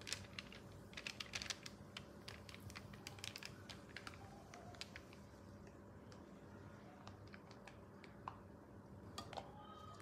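Faint, irregular clicking and crackling while hot caramel is poured from a pan onto parchment in a metal cake tin. The clicks come thick in the first two seconds, then thin out to a scattered few.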